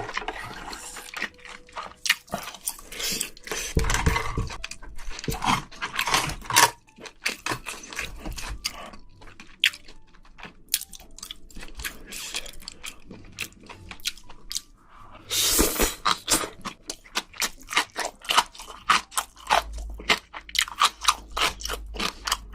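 A person chewing and biting spicy braised seafood, with many quick, sharp crunches.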